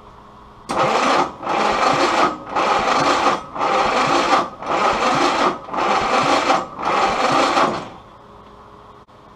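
Willys L134 Go Devil four-cylinder engine turned over by its starter motor for a compression test. The loud whirring surges and eases in seven even pulses about a second apart, then stops.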